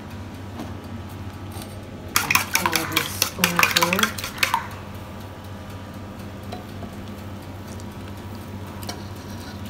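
Custard mix stirred briskly in a metal bowl: a rapid rattling, scraping burst of about two and a half seconds, starting about two seconds in, with the bowl ringing under the strokes.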